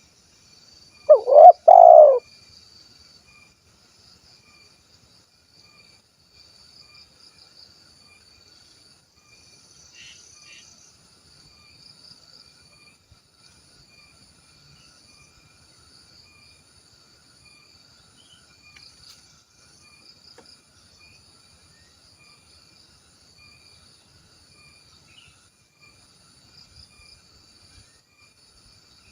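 Spotted dove (tekukur) giving one short cooing call about a second in, two notes close together, the second longer. A faint, steady high-pitched insect chirring continues under and after it.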